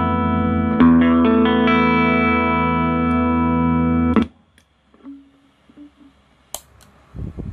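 Electric guitar played through a compressor pedal into a small practice amp: a ringing chord, a new chord strummed about a second in and left to sustain evenly, then muted about four seconds in. After that only faint clicks and handling noises, with a low thump near the end.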